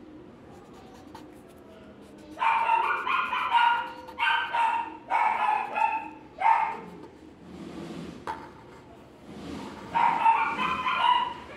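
A dog whining and yipping in two runs of short, high-pitched calls: one lasting several seconds from about two seconds in, another near the end.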